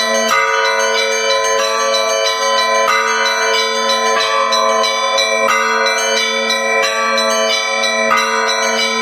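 Russian Orthodox church bells ringing a full peal: smaller bells struck in quick, dense repeated patterns over the steady hum of a larger bell.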